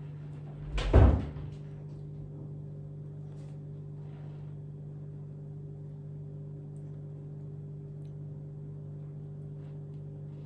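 A single dull thump about a second in, followed by a steady low hum.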